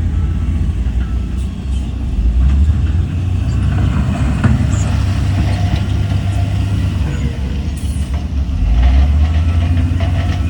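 Heavy earthmoving diesel engines running in a deep, steady rumble that swells and eases a little, with a few faint knocks.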